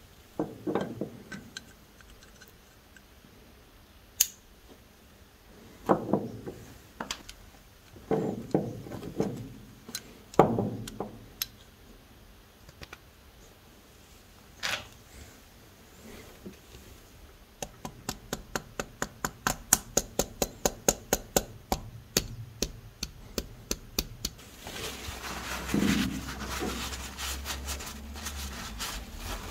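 Small metal revolver parts being handled: a Bulldog pocket revolver's cylinder knocked and clicked into its frame. Then comes a quick run of light metallic clicks, about four a second for several seconds. Near the end there is the rubbing of a cloth wiping the gun.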